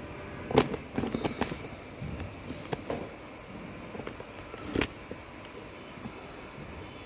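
A few short, sharp clicks and knocks, the loudest about half a second in, a small cluster about a second in, two more near three seconds and one near five seconds, over a faint steady background.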